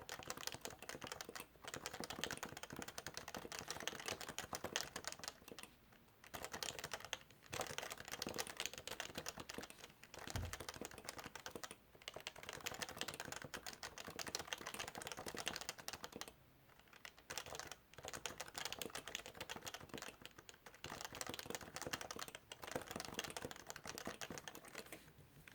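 Fast typing on a Topre Realforce keyboard with Topre capacitive rubber-dome switches: dense runs of rapid keystrokes broken by short pauses every few seconds.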